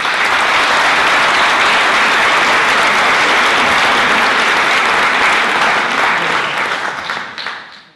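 An audience applauding: dense, steady clapping from many hands that dies away near the end.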